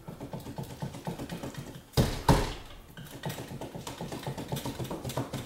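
Painter's multi-tool prying under painted wooden window trim, breaking the paint bond: rapid light ticking and creaking, with two sharp knocks about two seconds in.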